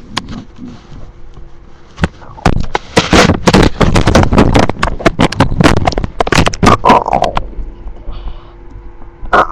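A hungry stomach growling: a long run of rapid gurgles from about two and a half seconds in to about seven, ending in a short falling squeal.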